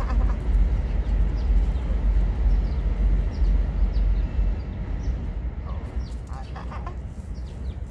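Low, gusty rumble of wind buffeting the microphone, easing somewhat after about five seconds, with a few faint short high chirps.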